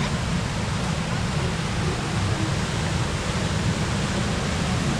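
Steady rushing noise of fast-flowing River Nene floodwater, an even hiss and rumble with no breaks.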